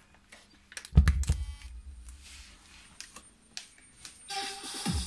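Clicks and a heavy thump with a low boom about a second in, as a crocodile clip is clamped onto a 12 V car battery terminal to power an amplifier. Near the end, music with a steady beat starts.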